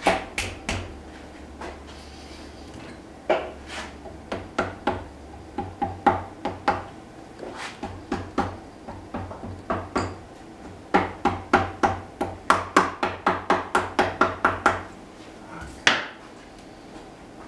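Hand ratchet clicking in runs of about four sharp clicks a second as bolts are turned, with a pause in the middle and the densest run a little past halfway.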